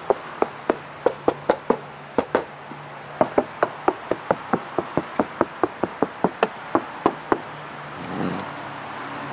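Knuckles rapping over and over on a car's trunk lid, several knocks a second, that stop near the end. The knocking tests the sound deadener applied inside the lid, and the panel knocks solid for the most part.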